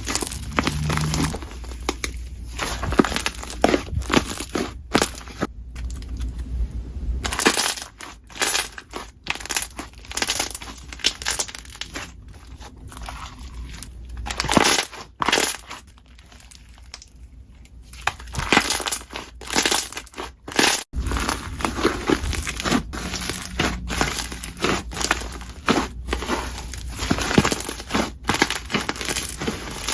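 Slime being squeezed and pressed by hand, giving dense, irregular clicks and pops, with a quieter spell a little past the middle.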